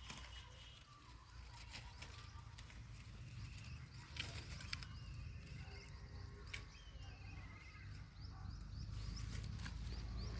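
Outdoor rural background with small birds chirping in short repeated trills. Scattered sharp clicks and rustles run over a low wind rumble on the microphone.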